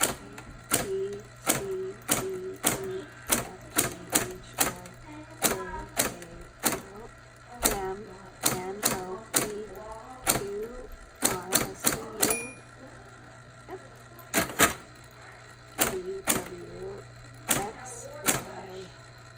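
Hermes manual typewriter keys being struck one at a time, typing out the alphabet: sharp, irregular clacks about one to two a second, with a brief pause in the middle. A short ring of the margin bell comes about twelve seconds in.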